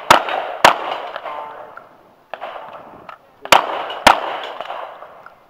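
Shotgun fired four times in two quick pairs, each pair's shots about half a second apart and about three seconds between the pairs, each shot echoing off, with a lighter knock between the pairs.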